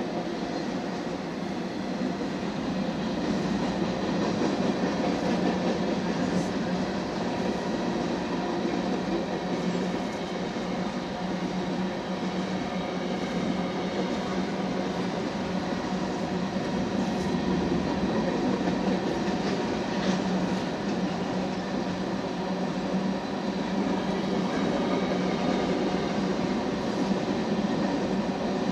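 Covered hopper cars of a Union Pacific freight train rolling past steadily, their steel wheels running on the rails with a few faint clicks.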